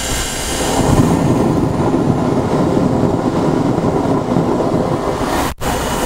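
Steam locomotive No. 29's boiler blowdown valve open, blasting hot boiler water and steam out the side in a loud, steady rush. This is a blowdown, which purges sediment from the boiler.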